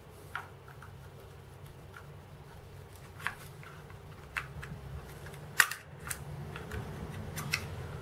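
A screwdriver tip prying at the plastic and metal case of a VooPoo Drag 2 vape box mod, giving a few scattered sharp clicks and snaps, the loudest a little past halfway, over a faint low hum.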